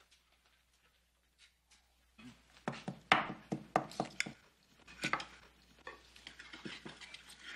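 Knife and fork knocking and scraping on a dinner plate as food is cut, a string of sharp irregular clinks starting about two seconds in.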